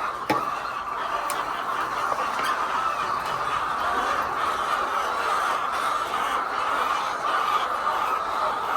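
A flock of laying hens clucking together, a steady dense chatter of many birds at once. There is one sharp knock about a third of a second in.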